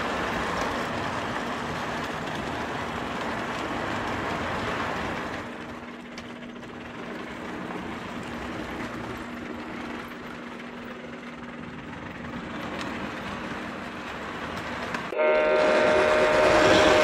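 Prewar American Flyer O gauge tinplate train running over steel T-rail track, its clatter dying away as the cars pass, leaving a steady low hum. About fifteen seconds in, a loud steady horn-like whistle blast starts suddenly.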